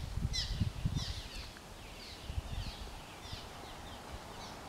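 Small birds chirping: a quick run of short, high, downward-sweeping chirps, about three a second, over an uneven low rumble.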